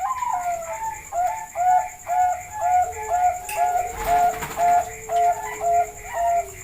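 Zebra dove (perkutut) singing: a longer sliding note, then a quick, even run of short cooing notes, about two a second.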